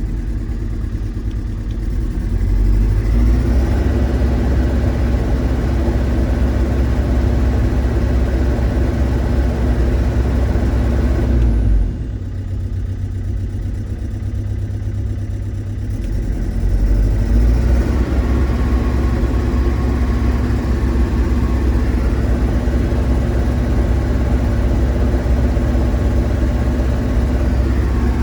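JCB JS220 excavator's diesel engine running steadily after its four injectors were replaced. It gets louder about three seconds in, drops back near twelve seconds, and gets louder again a few seconds later. The mechanic judges that it now runs normally.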